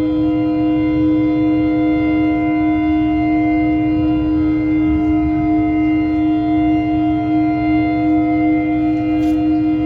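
Many ship horns sounding together in one long, unbroken blast: several steady tones of different pitch held at once over a low rumble.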